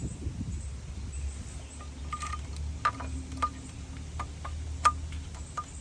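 Several light metallic taps and clinks, each with a short ring, coming irregularly from about two seconds in, as metal tools or parts are handled around the cylinder head. A low steady hum runs underneath.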